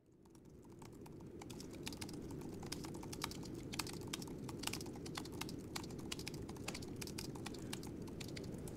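Computer keyboards being typed on: quick, irregular key clicks over a steady low room hum, fading in over the first second or two.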